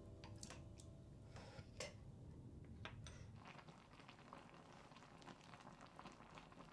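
Near silence: faint room tone with a few soft clicks, then many very faint tiny ticks in the last few seconds.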